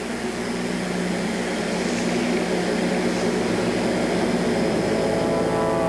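A steady low droning hum that slowly grows louder, with a chord of held tones coming in near the end.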